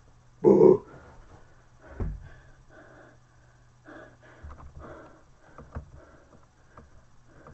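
A man breathing hard after a long set of push-ups, quick breaths about twice a second. There is a loud short burst near the start and a thump about two seconds in.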